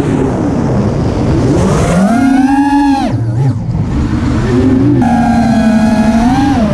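Racing quadcopter's brushless motors (iFlight Xing 2207 1800kv on 6S, 6-inch props) whining, the pitch sliding up and down with the throttle. The whine dips and breaks off about three seconds in, picks up again, and holds steadier near the end.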